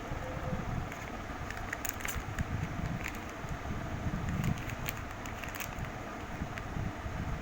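Earphone packaging being opened by hand: scattered crackles and clicks over a steady low rumble.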